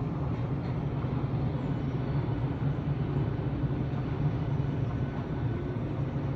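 Freightliner Class 59 diesel-electric freight locomotive, its EMD two-stroke V16 engine heard as a steady low rumble.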